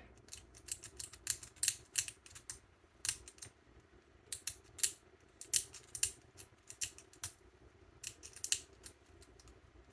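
Short, quick scraping strokes of a blade on a small plastic model-kit part, coming irregularly, several a second with brief pauses between runs.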